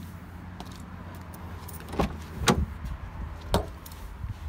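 Driver's door of a 2012 Nissan Juke being opened and someone climbing in: three sharp clacks, about two, two and a half and three and a half seconds in, over a steady low hum.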